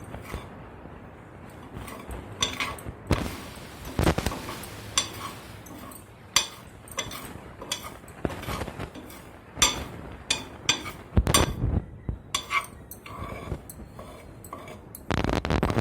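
A spoon clinking and scraping against a plate while stirring dry broken wheat (dalia) partway through microwave roasting, in short, irregular knocks. A louder, steadier noise starts near the end.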